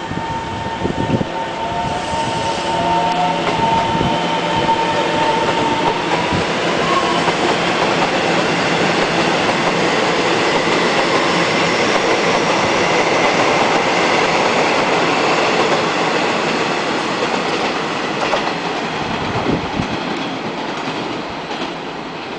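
Taiwan Railways EMU700 electric multiple unit running past close by, its wheels rumbling on the rails and growing loudest midway before easing off. A thin, high, steady whine sounds through the first several seconds.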